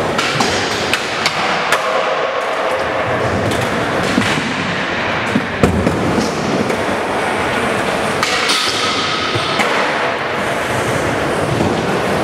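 Skateboard wheels rolling on concrete, with sharp clacks of boards being popped and landing scattered throughout; the loudest knock comes about five and a half seconds in.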